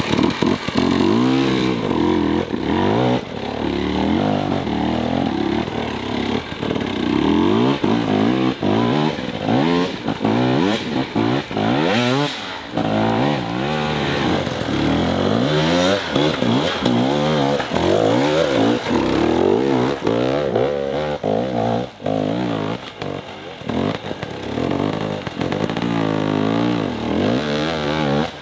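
Dirt bike engines revving hard in repeated throttle bursts, the pitch sweeping up and falling back again and again as the bikes claw up a steep, loose climb under heavy load.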